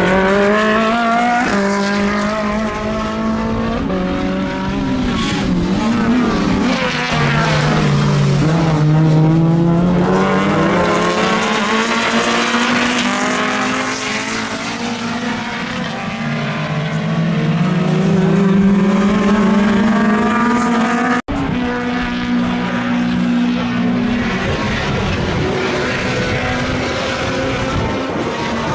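Race car engines running at high revs past the trackside, pitch climbing and falling with gear changes and as the cars pass. The sound cuts out for an instant about 21 seconds in.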